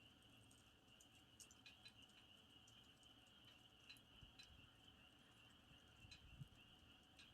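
Campfire burning quietly, wood crackling with scattered small sharp pops, over a steady faint high-pitched drone.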